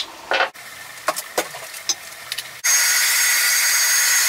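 A few short clicks and handling noises, then about two-thirds of the way in a handheld hair dryer starts abruptly and runs with a loud, steady rush of air and a thin, high, steady whine.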